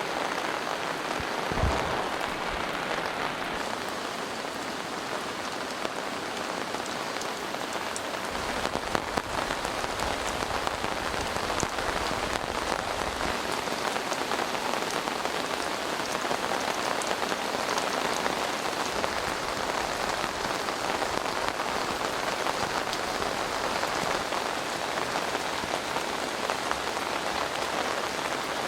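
Steady rain falling, with individual drops ticking through the hiss, and one low thump about two seconds in.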